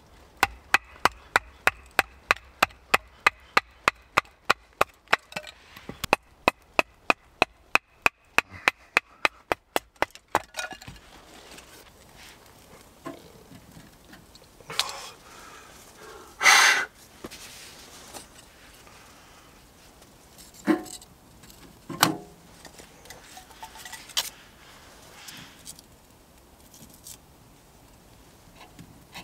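Rapid, evenly spaced wooden strikes, about three a second for ten seconds, as kindling is split on a chopping stump. Then scattered wooden knocks and clunks as the split sticks are fed through the door of a Pomoly tent stove.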